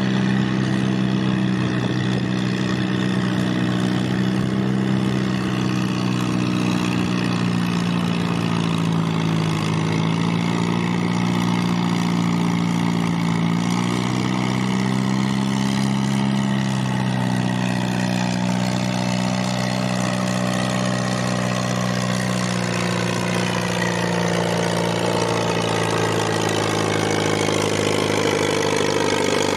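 Vintage Farmall tractor engine running steadily, its pitch wavering slightly around the middle.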